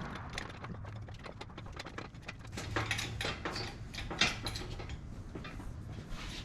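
Irregular light clicks and clanks of hand tools and metal parts being handled, over a low steady hum, busiest near the middle.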